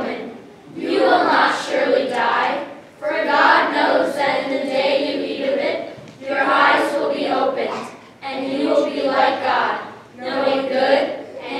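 A group of young students speaking a scripture passage together in unison, in phrases of about two seconds with short pauses between.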